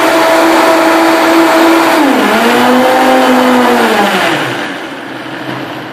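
High-performance countertop blender motor running at high speed, blending kale, fruit and water into a smoothie. Its pitch drops sharply about two seconds in and runs lower. It then winds down and stops near the end.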